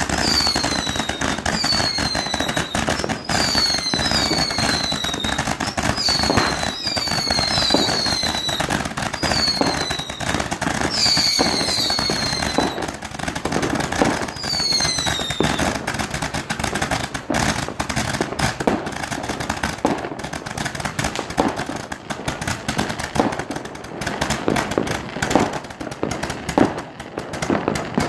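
Homemade fireworks going off nonstop: a run of short falling whistles, about one a second, over dense crackling and popping for roughly the first fifteen seconds, then rapid cracks and bangs.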